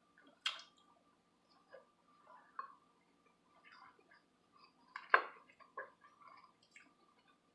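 Close-up eating sounds: a person chewing a mouthful of quinoa and kale, with small wet mouth clicks and two sharper clicks, the loudest about five seconds in. A faint steady high hum runs underneath.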